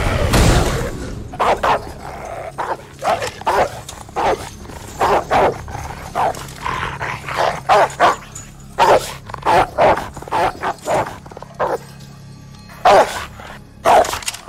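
A dog barking aggressively in a long series of short, sharp barks coming in quick irregular runs, as it attacks. A heavy thump sounds right at the start.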